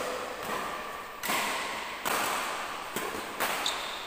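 Badminton racquets striking the shuttlecock during a rally: three sharp hits, the last two about a second and a half apart, each ringing on in the hall's echo.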